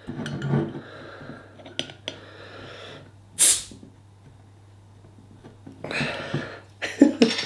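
Crown cap levered off a bottle of Banana Bread Beer with a bottle opener: a few clicks of metal on the cap, then a short, sharp hiss of escaping gas about three and a half seconds in as the seal breaks.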